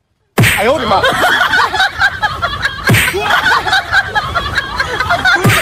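Many voices laughing and snickering together, like a laugh-track sound effect, starting after a brief silence. Three sharp falling swoops cut through it.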